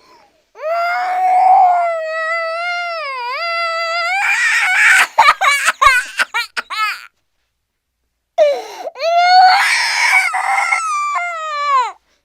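Cartoon baby-cry sound effect: two long, high-pitched wails. The first breaks into choppy sobs partway through, and the second starts about eight seconds in.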